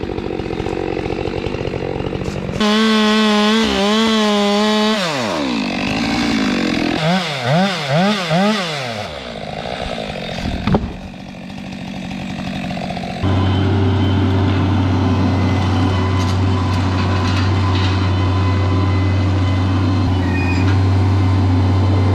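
Chainsaw running at full throttle, its pitch sagging as it bogs into a cut, then several quick revs up and down. About halfway through, a steady low engine drone takes over.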